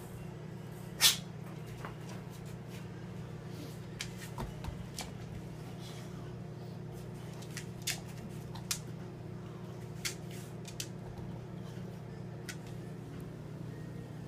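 Scattered sharp knocks and clicks as a dog noses and pushes a rubber Kong toy against a wire crate and across a tile floor, the loudest knock about a second in. A steady low hum runs underneath.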